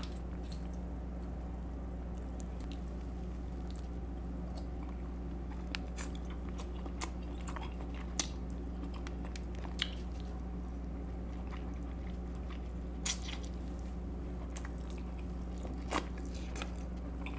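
Close-up eating sounds: a sauce-dipped king crab leg being handled, its meat bitten and chewed, with wet squishes and scattered sharp clicks from the shell, over a steady low hum.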